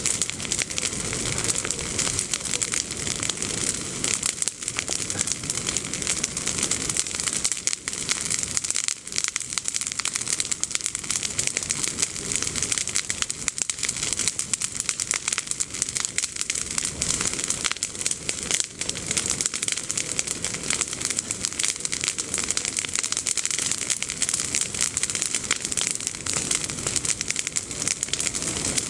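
Bonfire of freshly pruned green olive branches and leaves crackling steadily in a dense, rapid patter of fine pops.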